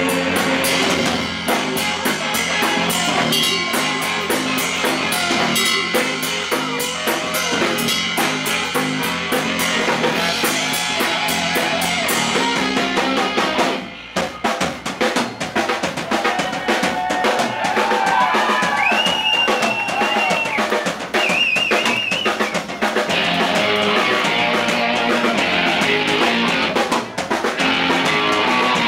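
Live rock band playing loud, with the drum kit out front and electric guitars, heard from the stage through the amps and monitors. About halfway through the music briefly drops away, then comes back on heavy drumming, with high wavering lead notes a few seconds later.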